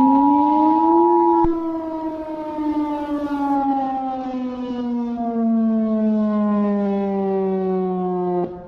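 Emergency Alert System attention signal: a steady two-tone beep that stops about a second and a half in. Under it a civil-defense-style siren wail rises in pitch, then slowly winds down over several seconds and cuts off just before the end.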